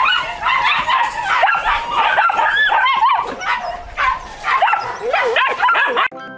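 A pen of Belgian Malinois puppies yipping, whining and barking all at once, many overlapping high calls. It cuts off suddenly near the end.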